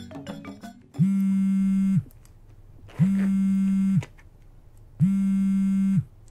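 Telephone ringback tone: the line ringing on an outgoing call while it waits for an answer, as three one-second low, buzzy tones, one every two seconds. Background music fades out during the first second.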